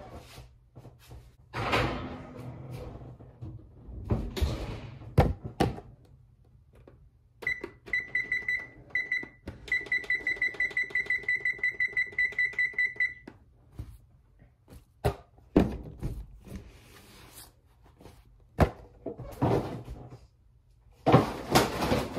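Clunks and clatter as a glass baking pan goes into the oven and the oven door is handled. In the middle comes a run of rapid electronic beeps from the oven's control panel, about five a second for several seconds with two short breaks, as its 25-minute timer is set.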